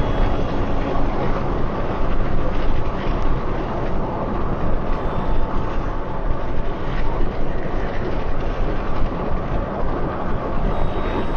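Car being driven along a road: a steady rumble of tyre and engine noise.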